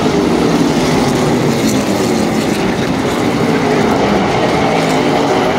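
Race car V8 engines running as a pack of late model stock cars circles the short oval, a steady loud drone with the pitch drifting slightly as cars pass.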